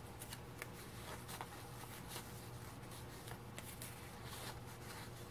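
Small paper cards rustling, faint crisp ticks as they are handled and slid into a paper pocket, over a steady low hum.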